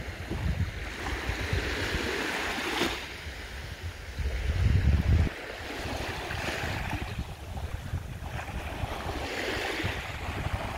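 Small waves washing onto a sandy shore, swelling and falling every few seconds, with wind buffeting the microphone in low gusts, loudest about halfway through.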